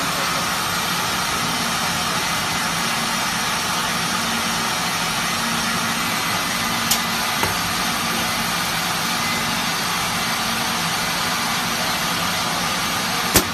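Phone case laser engraving machine running with a steady fan hum and hiss. A sharp click comes about seven seconds in, and a louder click near the end.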